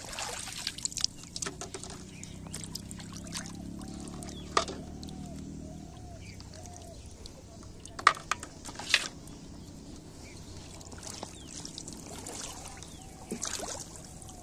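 Pond water splashing and trickling as hands empty and reset plastic bottle fish traps, with sharp knocks of fish and bottles against an aluminium basin about eight and nine seconds in. A low steady hum runs for a few seconds in the first half.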